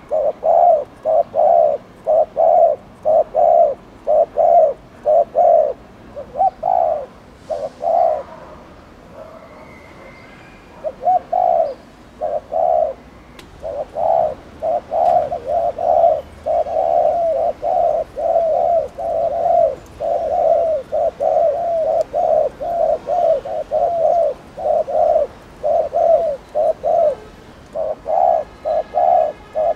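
Spotted dove giving the rapid 'gù' coo: runs of short, low, throaty notes at two to three a second, with a pause of about two seconds around nine seconds in.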